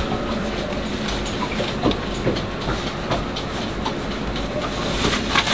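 A steady low rumble with scattered small clicks, knocks and rustles as a man pulls on his boots.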